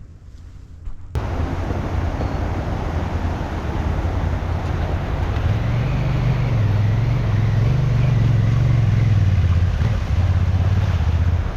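Touring enduro motorcycle engine running under way, with road and wind noise; it cuts in suddenly about a second in, and the engine note rises in the middle and settles back near the end.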